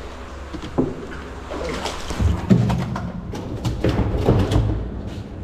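Scattered knocks and thumps of handling inside a boat, against its hull and deck, over a steady low rumble.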